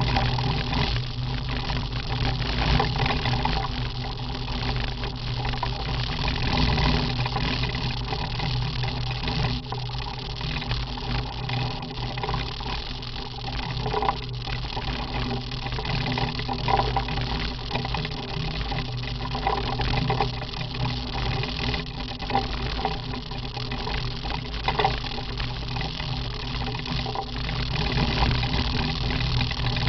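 Motorcycle with sidecar running steadily at road speed, its engine a constant low drone under wind noise and the rush of tyres on a gravel road.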